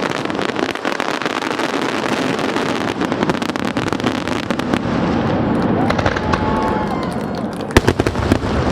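Fireworks going off: a dense, continuous crackle of rapid pops over a steady rumble of booms, with one loud, sharp bang near the end.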